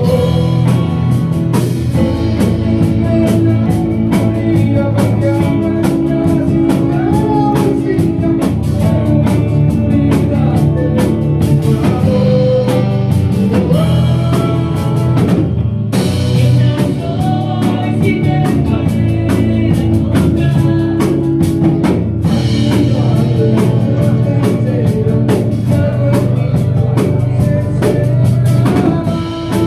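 Live rock band playing: electric guitars and electric bass over a drum kit, with a steady beat.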